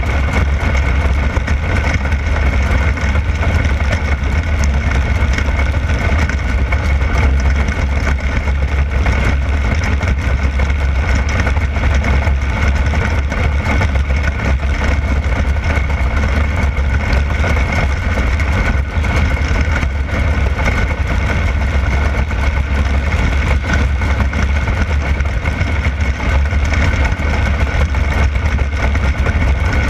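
360 sprint car's V8 engine running steadily on a dirt oval, heard from a camera mounted on the car: a loud, even drone with little change in revs.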